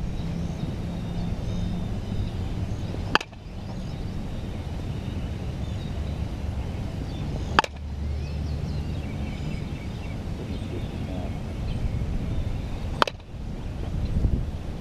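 A 2016 ComBat Rocket Launcher senior softball bat hitting softballs: three sharp cracks of bat on ball, about four to five seconds apart, over a steady low background noise.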